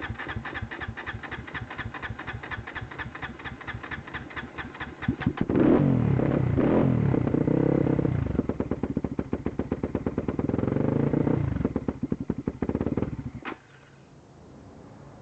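An engine cranking over in an even rhythm for about five seconds, then catching and running loudly but unevenly, its speed surging and sagging, before it cuts out suddenly near the end: a misfiring engine that stalls.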